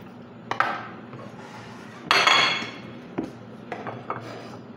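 Kitchen knife knocking and scraping on a plastic cutting board while tomato slices are moved, with a louder clatter and short ring about two seconds in from a ceramic plate set down on the counter.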